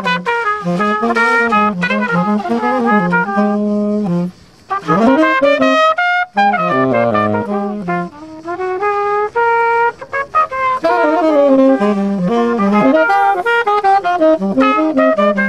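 Trumpet and tenor saxophone playing jazz together, two melodic lines moving at once, with a brief break about four seconds in.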